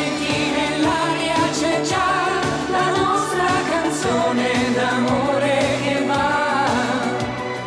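Live Italian pop duet: a woman and a man singing in turn into microphones over a band with a steady beat.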